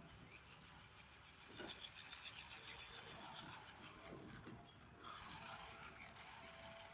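Faint rasping and rubbing scrapes, picking up about one and a half seconds in and carrying on unevenly.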